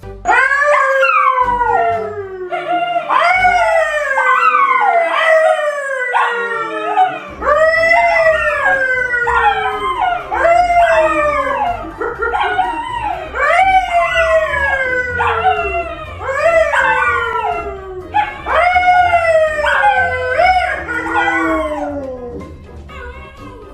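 A man and two dogs, a Labrador and a poodle, howling together: a run of loud, overlapping howls, each rising briefly and then sliding down, one after another.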